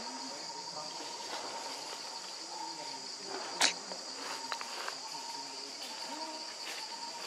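Steady high-pitched chirring of insects, typical of crickets or cicadas, with a single sharp click about halfway through.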